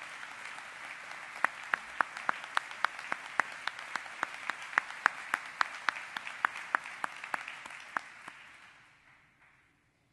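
Audience applauding, with one person's louder, evenly spaced handclaps close to the microphone, about four a second, standing out over the crowd for most of it. The applause fades out near the end.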